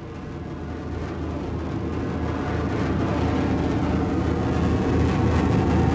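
Jet aircraft taking off: a steady, rushing rumble that grows gradually louder as the plane lifts off.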